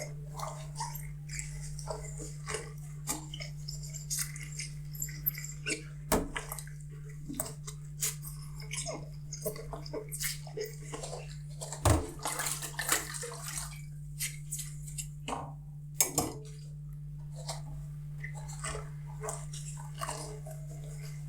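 Dishes being washed by hand in a sink: water splashing, with frequent light clinks and knocks of dishes and utensils, the sharpest about six, twelve and sixteen seconds in, over a steady low hum.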